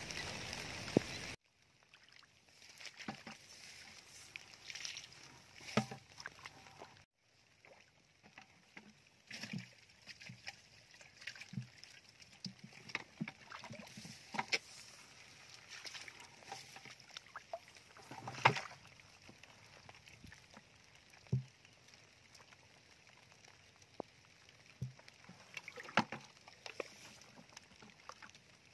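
Small, irregular splashes and sloshes in a shallow, muddy trickle of water, with a few sharper splashes among them. The first second or so holds a steady hiss that cuts off abruptly.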